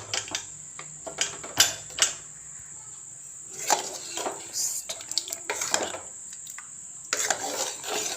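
Metal spoon clinking and scraping against the pressure cooker pot in irregular clatters as the cooked beef is stirred and checked.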